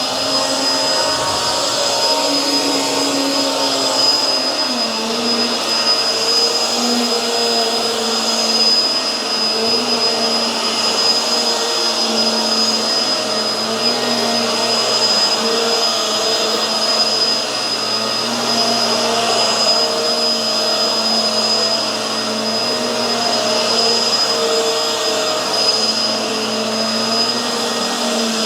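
Hoover Tangle Gard upright vacuum running on carpet: a steady motor hum with a high whine over the rush of suction, its pitch dipping and recovering slightly as it is pushed back and forth.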